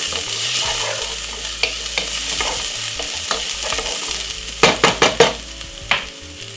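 Chopped garlic and white onion sizzling in hot oil in a frying pan, with a utensil scraping and knocking against the pan several times between about four and a half and five and a half seconds in.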